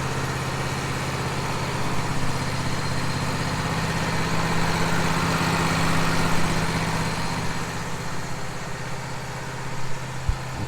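Wood-Mizer LT15 sawmill engine running steadily at idle.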